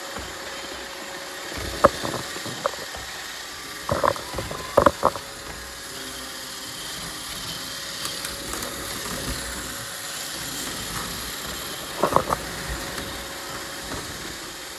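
Roomba robot vacuum running with a steady whir, with sharp knocks about two seconds in, a cluster of them around four to five seconds in, and another cluster near the end.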